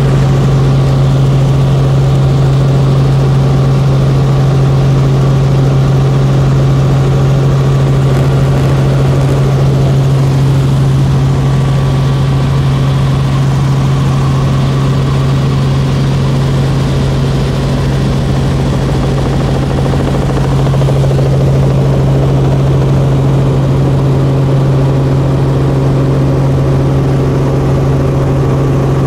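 Loud, steady drone of a small sightseeing aircraft's engine, heard from inside the cabin.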